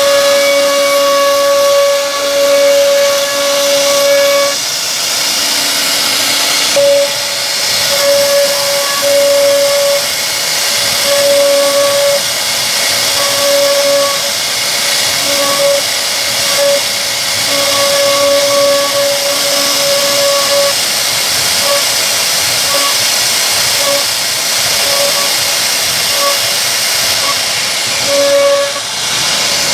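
CNC wood router's high-speed spindle cutting into solid wood: a loud, steady hiss with a whining tone that keeps cutting in and out as the bit moves through the carving.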